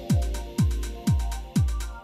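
Electronic dance music with a deep kick drum on every beat, about two a second, and crisp hi-hat ticks between the kicks.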